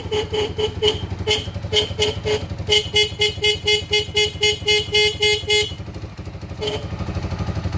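Sport ATV engine idling steadily under a rapid electronic beeping, about five short beeps a second. The beeping stops abruptly about six seconds in and gives one more short beep a second later, while the engine idles on.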